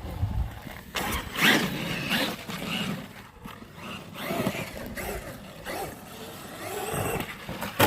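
Traxxas Maxx RC monster truck's brushless electric motor whining in repeated bursts of throttle, with its tyres working over the ground. A sharp knock comes near the end.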